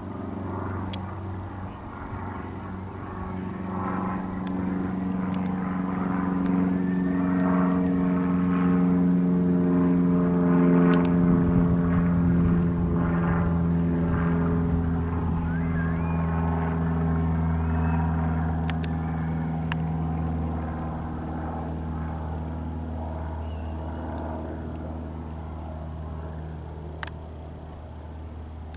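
Cessna 150 light plane flying overhead, its four-cylinder Continental O-200 engine and propeller running steadily. The sound grows louder to a peak about halfway through, then fades as the plane passes, its pitch dropping slightly.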